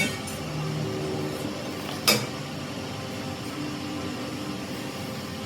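A steady mechanical hum from running workshop machinery, with a short click at the start and one sharp knock about two seconds in.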